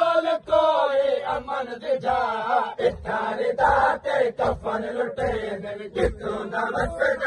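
A crowd of men chanting a noha, a Muharram lament, together, with repeated sharp slaps of hands beating on chests (matam) cutting through the chant.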